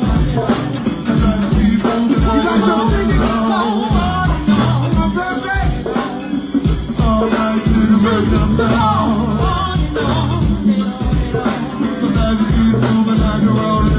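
Live go-go band playing a steady, percussion-driven groove, with a singer's voice over it.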